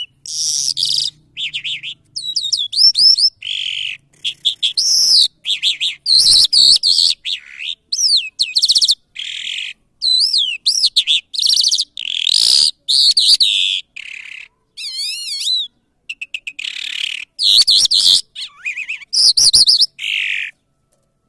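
A caged lark (Mashadi jal) sings a long, varied song of high whistles, fast up-and-down warbles and trills. The phrases come in quick succession with short pauses between them and stop shortly before the end.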